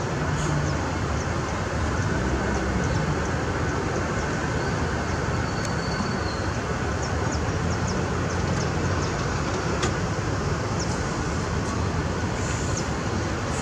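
Diesel-electric locomotive engine running steadily with a low, even rumble.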